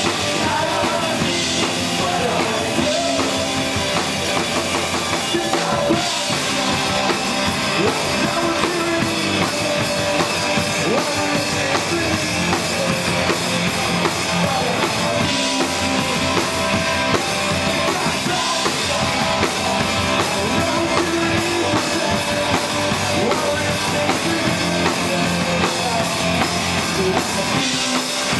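Punk rock band playing live: distorted electric guitars and a drum kit with busy cymbals and bass drum, with a man singing into the microphone over it.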